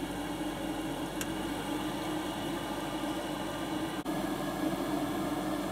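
Kitchen exhaust fan over a gas stove running with a steady whirring hum.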